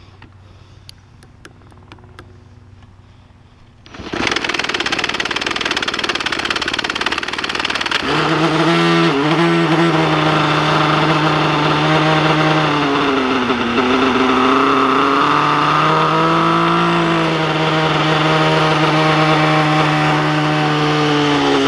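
Freshly rebuilt radio-controlled aircraft on a test hover. After a few faint clicks, its motor and rotors start suddenly about four seconds in. From about eight seconds a strong hum takes over, its pitch dipping and rising in slow waves as the power is worked.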